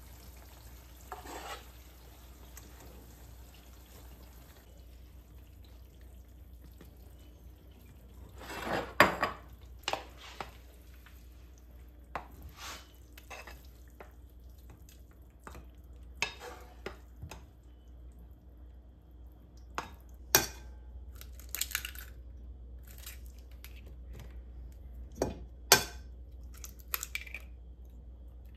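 Kitchen utensils and dishes clinking and knocking against bowls and pans, in scattered short strikes, loudest around a third of the way in and twice near the end, over a faint steady hum.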